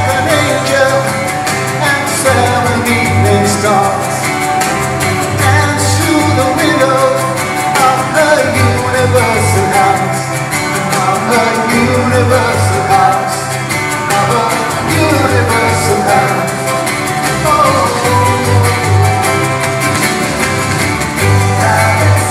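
Live band music with a singer, heard from the audience in a theatre hall, over a deep bass that swells every couple of seconds.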